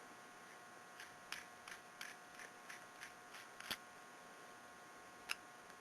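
Faint light clicks of the metal parts of a Hornady cam-lock bullet puller as its handle is threaded into the die body, about three a second for a few seconds, then one more near the end, over a faint steady hum.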